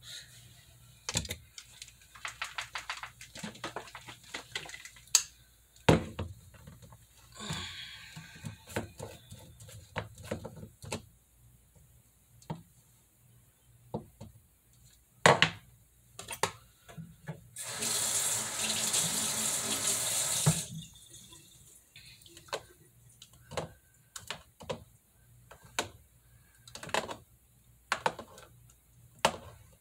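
Kitchen handling noises: scattered clicks and knocks of containers and utensils on the counter, with a faucet running into a sink for about three seconds a little past the middle.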